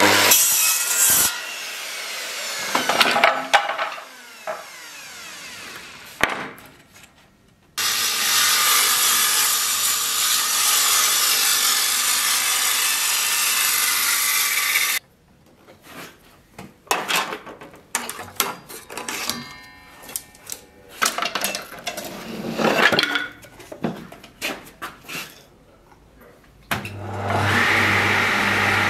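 Woodworking machines at work on wooden boards, in several separate bursts. A jointer planes a board in a steady stretch of several seconds in the middle. Near the end a table saw starts up and runs with a steady hum.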